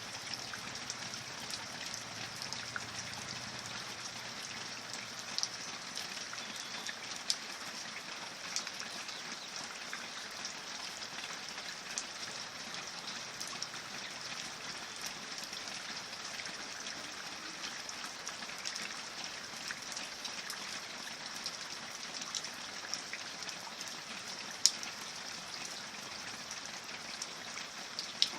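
Steady rain falling, an even hiss with scattered sharper drop hits, a few of them louder than the rest.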